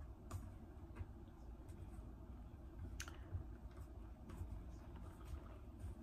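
Faint handling noise as a synthetic wig on a mannequin head is handled and moved: a few scattered light clicks over a steady low hum.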